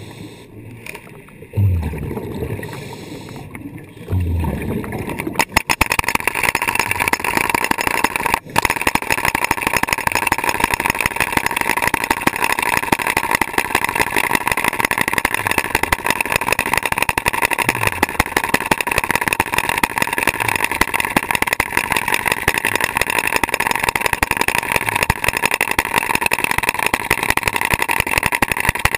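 Stanley underwater hydraulic breaker hammering rock, heard underwater: a rapid, steady stream of blows starts about five seconds in and keeps going, with one brief pause a few seconds later.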